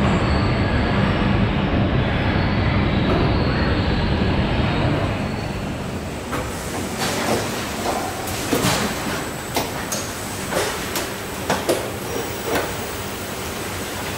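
Car assembly line machinery: a steady heavy rumble with a low hum, which drops away after about five seconds to a lighter hiss of the plant, broken by sharp metallic clanks and clicks about once a second.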